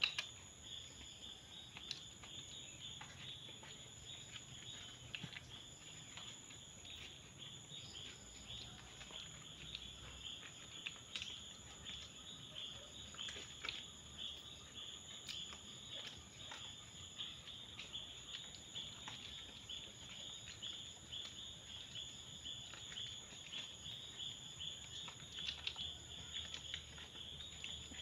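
Puppies suckling at their nursing mother dog: faint, irregular little clicks and smacks over a steady high-pitched hiss.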